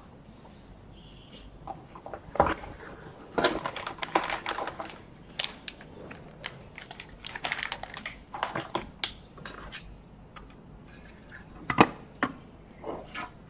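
Desk handling noises: scattered clicks and crinkling as small wrapped parts are handled, then a couple of sharp knocks near the end as an aluminium sliding-door track is set down on a turntable.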